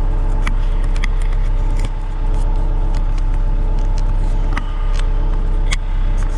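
John Deere 190E excavator's diesel engine running steadily, with scattered sharp clicks and clanks over it.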